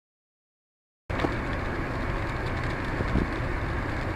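Silence for about the first second, then steady car-cabin noise from a dashcam cuts in abruptly: low road and engine rumble with rain on the wet road and windscreen, and a few sharp taps.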